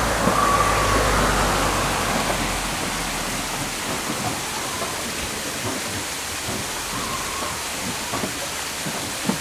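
Steady rush and splash of water at a waterwheel, an even hiss like heavy rain, with a low rumble that fades out about three seconds in.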